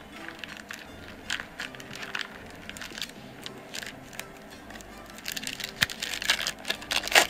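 Crinkling of a gold foil trading-card pack wrapper being handled and opened, with scattered crackles that grow busier and louder over the last two seconds, over quiet background music.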